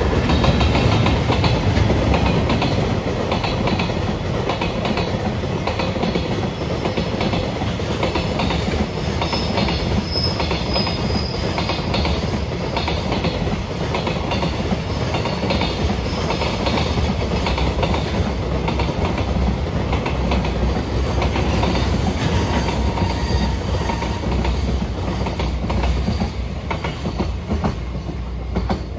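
A freight train's wagons rolling past, with a steady rumble and wheels clattering rapidly over the rail joints. A faint high wheel squeal rises about ten seconds in.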